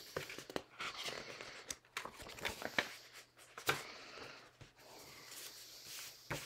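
Paper pages of a book being leafed through: scattered rustles and soft page flicks, busiest in the first four seconds and thinning out after.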